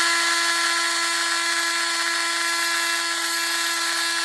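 Small handheld electric power tool running at a steady high speed, a constant whine with a clean set of overtones, while touching up spots on the plastic airbox.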